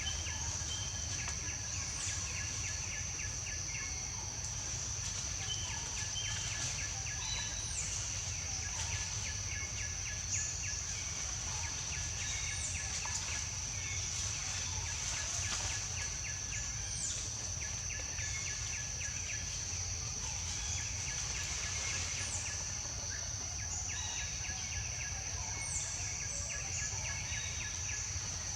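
Outdoor ambience: a steady high-pitched insect drone, with short bird chirps scattered through it and a low background rumble.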